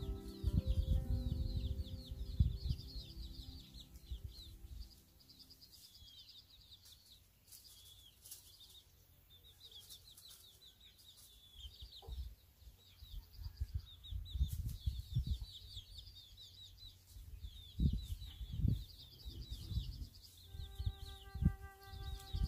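Small birds chirping busily and continuously, with Araucana chickens clucking and irregular low thumps close by. Soft background music fades out in the first few seconds and comes back near the end.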